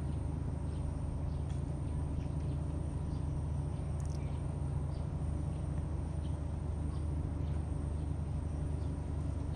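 Outdoor mangrove ambience: a steady low rumble with faint, scattered bird chirps and one brief click about four seconds in.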